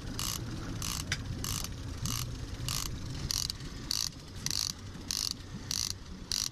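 Fishing reel's ratchet clicking in short, evenly spaced bursts, a little under two a second, over the steady low rumble of the boat's outboard motor.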